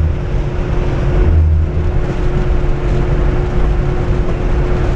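Camper van running down the highway, heard from inside the cab: a steady low engine and road rumble with a constant drone.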